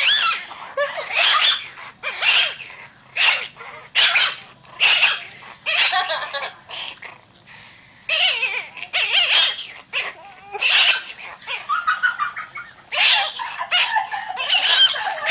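Puppy yipping and whining in a rapid string of short, high-pitched cries, with a brief lull about seven seconds in.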